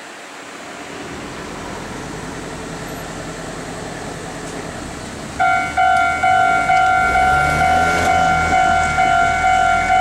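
A low rumble builds, then about five seconds in a railway level-crossing warning bell starts ringing, a loud repeated electronic ding about twice a second.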